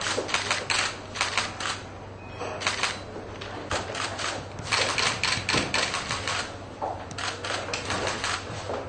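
Camera shutters clicking in rapid, overlapping bursts, several cameras firing at once.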